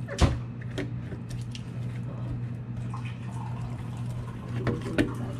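Hand rubbing seasoning into a wet whole fish on a plastic cutting board in a metal sink: soft wet squishing and rubbing, with a sharp knock about a quarter second in and another near the end, over a steady low hum.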